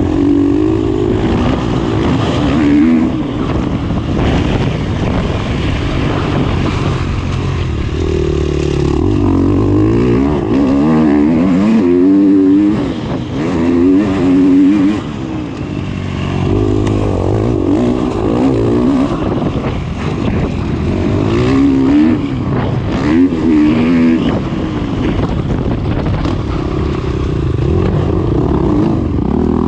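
KTM dirt bike engine heard from on board at race pace, revving up and down again and again as the rider works the throttle and gears. It backs off briefly about halfway through.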